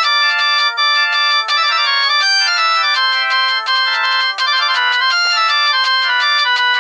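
Ginzzu R11D mobile phone playing one of its built-in polyphonic ringtones: a quick synthesized melody with several notes sounding at once, all in the middle and high range with no bass.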